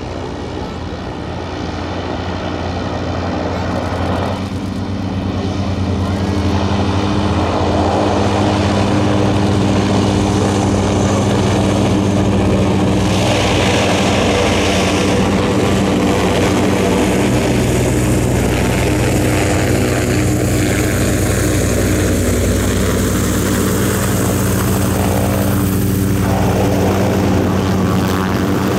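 Zeppelin NT airship's propeller engines droning steadily on the landing approach. The drone grows louder over the first several seconds as the airship comes closer, then holds level, with a falling tone in the second half.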